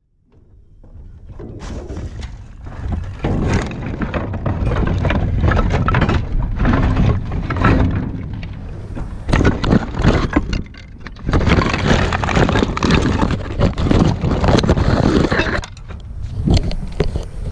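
Demolition debris of broken wood and roofing clattering, crashing and scraping in a dumpster, heard from a GoPro that has fallen in among it, with repeated knocks and rubbing right on the camera.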